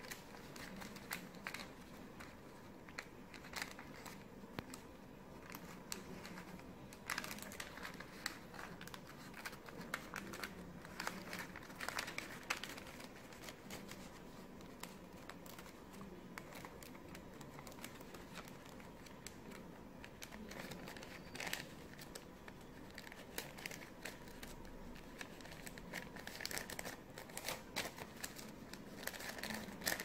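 A sheet of A4 paper being folded and creased by hand in origami: irregular, faint crinkling and rustling with many small sharp crackles as the folds are pressed flat.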